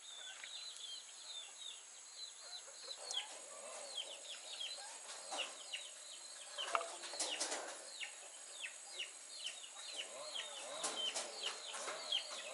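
Birds chirping: many short, falling chirps repeat all through, with a few louder, fuller calls near the middle. A steady high-pitched whine runs underneath.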